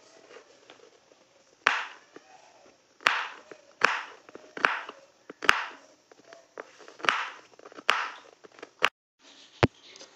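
Knife chopping on a cutting board: a run of sharp chops a little under a second apart, uneven in strength.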